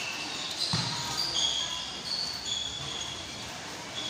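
Basketball game sounds: a ball bouncing once on the court about three-quarters of a second in, with many short high squeaks of sneakers on the floor.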